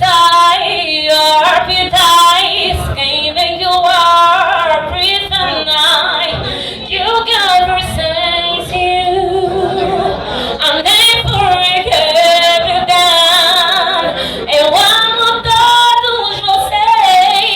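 A singer's voice performing a live solo song, with long held notes that waver in pitch.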